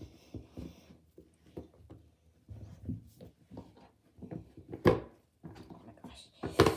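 A pencil box being handled and dried with a towel at a sink: soft rubbing and light taps, with two sharper knocks about five seconds in and near the end.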